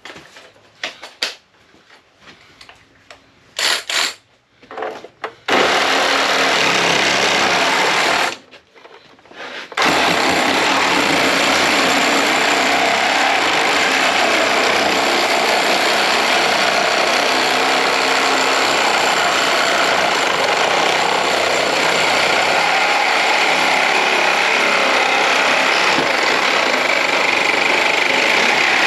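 A few handling clicks, then a power tool starts about five seconds in and runs steadily, stops briefly, and starts again about ten seconds in, running on at an even, loud level.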